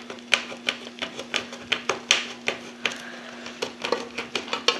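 Can opener of a Victorinox Swiss Champ pocketknife cutting around the lid of a tin can: a steady series of sharp metal clicks, about two to three a second, as the blade is worked along the rim.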